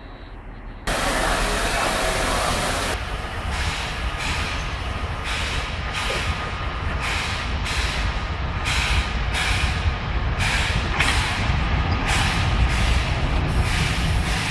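Steam locomotive starting its train: a sudden loud hiss of steam about a second in, then evenly repeating exhaust chuffs with steam hiss, about two a second, over a low rumble as the train pulls away.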